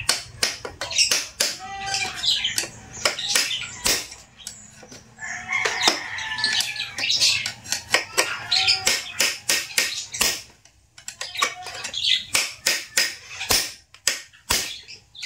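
Repeated sharp metal-on-metal hammer knocks on a screwdriver braced against a chainsaw's clutch spokes, about two to three a second with short breaks, driving the stuck clutch loose.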